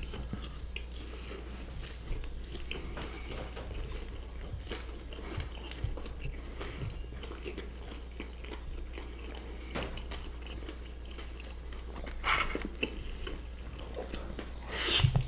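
Close-miked chewing and biting of food (cheddar-and-bacon fries and parmigiana), with many small wet clicks over a faint steady low hum. Two louder bites or crunches stand out, about twelve seconds in and near the end.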